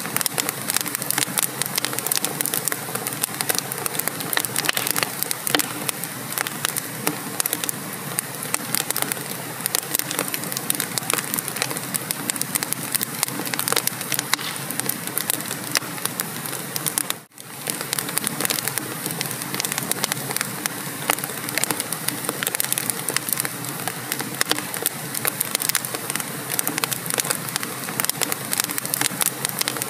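Wood fire in a fireplace crackling and popping with dense, irregular snaps. The sound cuts out for an instant a little past halfway.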